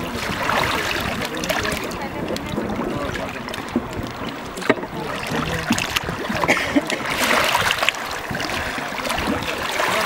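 River water rushing and splashing around an inflatable raft as it is paddled, with paddle strokes dipping into the water.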